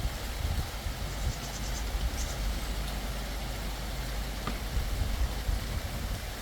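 Thunderstorm: a low, uneven rumble under a steady hiss of rain, with a few faint high chirps between one and two seconds in.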